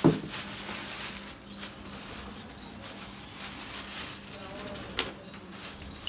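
Rustling and crackling of a plastic bag and dry, fibrous nesting material being pulled out by hand, with a sharp click at the start and another about five seconds in.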